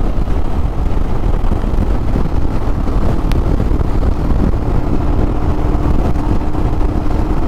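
Wind rushing over the microphone of a Royal Enfield Himalayan motorcycle riding at highway speed, with the engine's steady drone underneath and a faint steady hum from about halfway.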